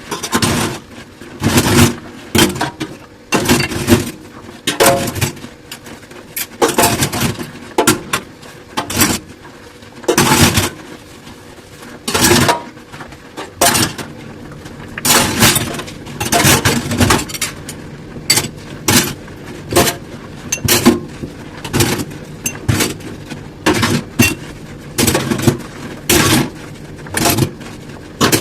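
Dishes being washed by hand in a sink: a steady run of short scrubbing and clinking sounds, about one to two a second, as dishes and glassware are handled and scrubbed.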